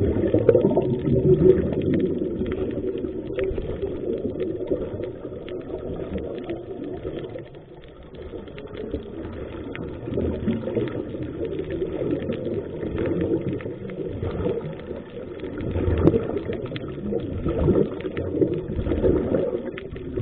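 Underwater noise picked up by a submerged camera: a low rumbling wash of water with crackling bubbles from a scuba diver's exhaled air, swelling a few times near the end.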